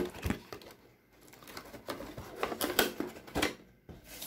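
Cardboard toy box and its plastic packaging being opened and handled by hand. A sharp knock comes right at the start, then a run of irregular rustling, scraping and tapping from about two to three and a half seconds in.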